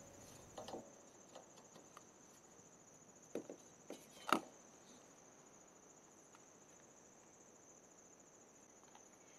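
Old plastic gas cap tether tab being pried out of the fuel-filler door with pliers: a few small plastic clicks and one sharper snap a little over four seconds in. A steady high insect trill runs underneath.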